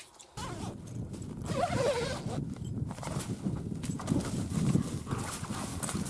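Strong wind buffeting the microphone: low rumbling noise that starts abruptly about a third of a second in, with scattered crunches and rustles over it.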